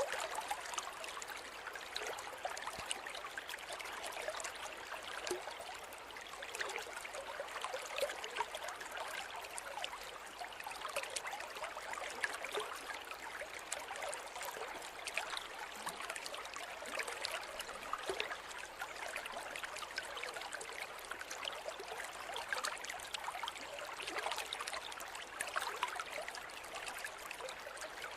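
Small river or stream flowing steadily over stones, with a continuous babble and fine gurgling splashes.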